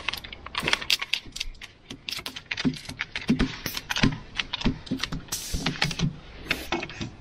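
Rapid, irregular metallic clicks and taps of hand tools, a grease gun and a spanner, working grease nipples on a grader's hydraulic pivots.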